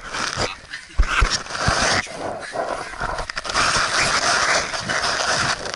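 Scraping and rustling of clothing and gear rubbing against cave rock as a caver crawls through a tight passage, with a few dull knocks about a second in.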